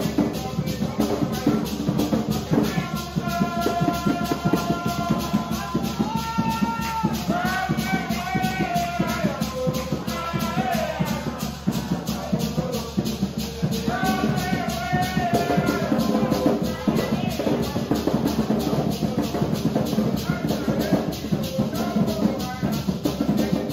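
Garifuna hand drums played in a fast, steady rhythm with maracas shaking throughout. Voices sing over them in two stretches, from a few seconds in to about ten seconds and again in the middle.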